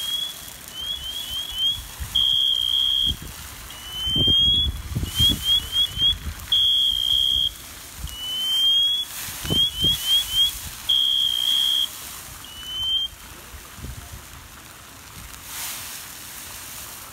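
An electronic alarm sounding in a repeating cycle of high tones: a steady beep, a slow rising sweep, then four quick rising chirps, over and over, stopping about thirteen seconds in. Low rushing bursts of noise come in twice, about four and ten seconds in.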